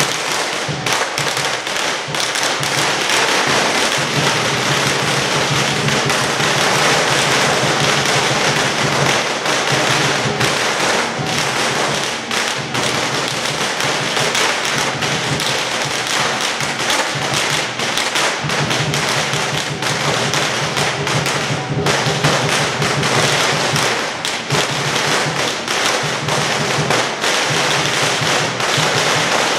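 Strings of firecrackers going off in a rapid, unbroken crackle of bangs, with lion dance drumming underneath.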